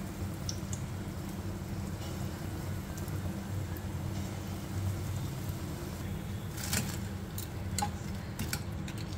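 Vada batter frying in hot oil in a kadai, a steady sizzle. Near the end, a few light clinks of a spoon against a steel bowl.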